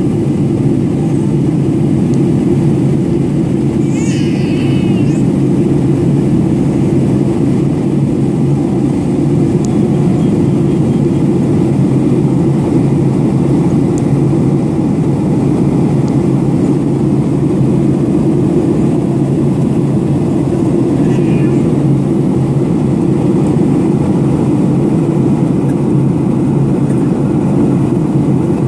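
Steady cabin noise of an airliner climbing after takeoff: a loud, even rumble of engines and airflow with a low hum underneath.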